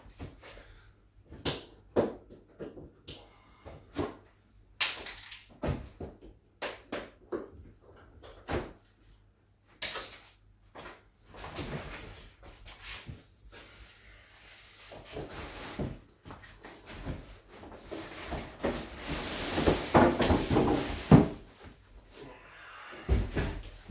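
A large cardboard TV carton being handled: scattered knocks and clicks as the top of the box is worked open, then a longer scraping rustle of cardboard as the outer sleeve is lifted off, loudest about twenty seconds in.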